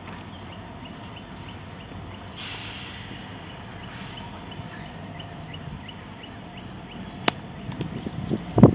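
Diesel-electric freight locomotive running with a low, steady rumble as it approaches slowly. A sharp click comes about seven seconds in, and loud thumps follow near the end.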